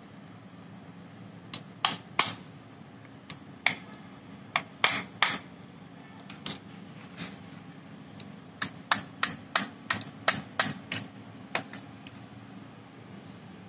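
Sharp metallic taps, about twenty in uneven runs and quicker toward the end, from a pair of pliers used as a hammer on an Eicher tractor starter motor's armature shaft and end housing while the Bendix drive is being fitted.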